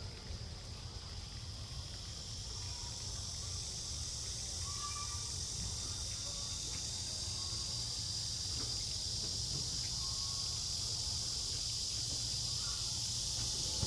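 Steady high-pitched insect chorus that slowly grows louder, with a few short bird chirps over it and a low background rumble.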